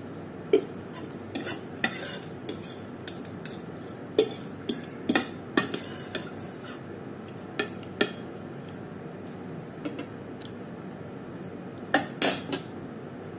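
Metal fork and spoon scraping and clinking against a plate as the last scraps of fried noodles are gathered up. Irregular sharp clinks and short scrapes, with small clusters about two seconds in, around the middle, and near the end.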